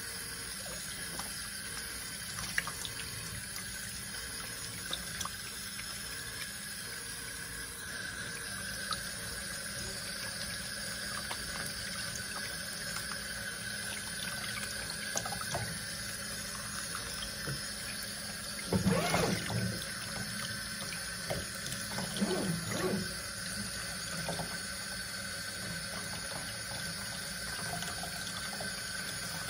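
Water running and splashing in a stainless steel kitchen sink as a puppy is washed. A couple of brief, louder sounds come about two-thirds of the way through.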